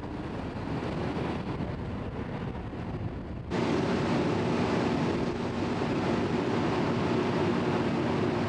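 Steady low rumble with wind noise, which changes abruptly about three and a half seconds in to a louder, steady mechanical hum with two droning tones over a hiss.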